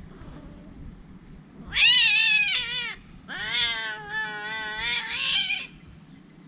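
A cat meowing twice: a short, loud meow about two seconds in that falls in pitch at its end, then a longer, wavering meow.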